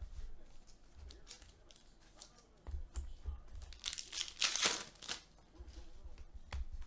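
Trading cards and foil card-pack wrappers being handled: crinkling, tearing and cards sliding against one another in a string of short rustles, loudest about four to five seconds in.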